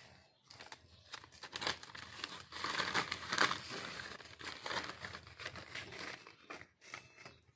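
Black plastic polybag crinkling as hands pull it open and handle it, loudest around the middle.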